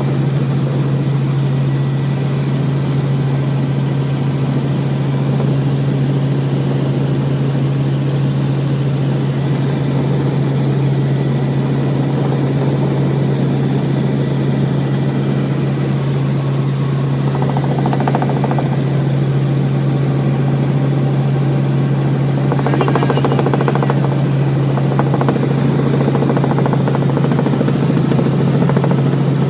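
Helicopter in flight heard from inside the cabin: a loud, steady drone of engine and rotor with a strong constant low hum.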